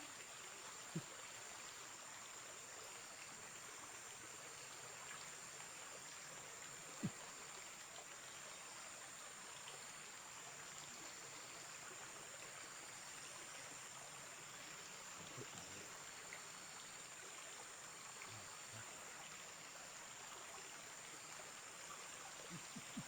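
Faint, steady flowing river water with a continuous high-pitched insect drone, and a couple of soft knocks about a second and about seven seconds in.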